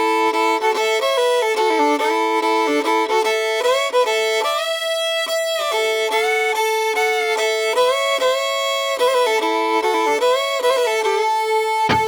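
Background music: a solo fiddle playing a melody, often sounding two notes at once.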